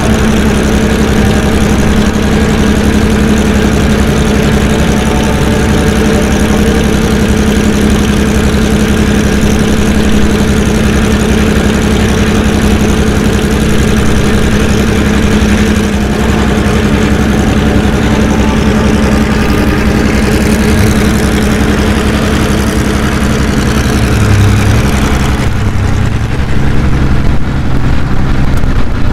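Porsche 917K's air-cooled flat-12 engine idling steadily while it warms up, growing louder and more uneven near the end.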